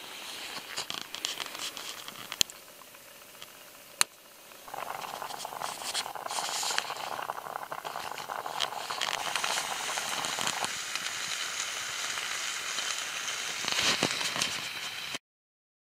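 Wood fire burning in a Bush Box LF titanium stove: crackling with a couple of sharp pops, then a steady hiss that comes up about five seconds in. It cuts off suddenly near the end.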